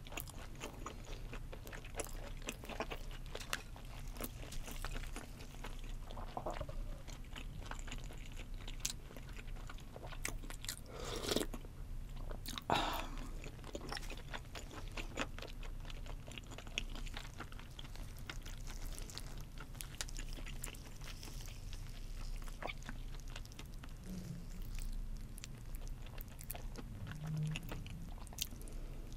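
Close-miked chewing of raw fish (sashimi): a steady run of small mouth clicks, with a few louder ones about 11 and 13 seconds in.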